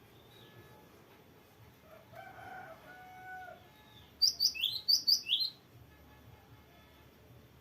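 Cinereous tit (gelatik batu) singing a quick, loud run of about six sharp high whistled notes, some sliding down in pitch, a little over four seconds in. Before that, a rooster crows faintly in the background.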